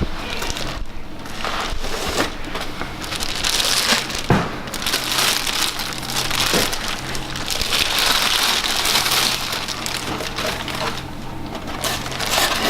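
Packing material of a boxed collectible statue being crinkled and rustled as it is unpacked by hand: continuous crackling with a few sharp knocks.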